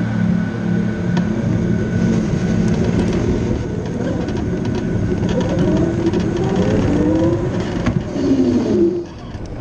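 Formula SAE race car pulling away and accelerating, heard from its nose, its drive note rising in pitch in repeated sweeps over road and wind noise. The note drops and the level falls away near the end as the car lifts off.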